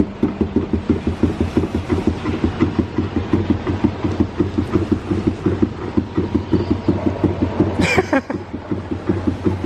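A machine running with a steady, rapid chugging of about six even beats a second. A short, high gliding cry is heard about eight seconds in.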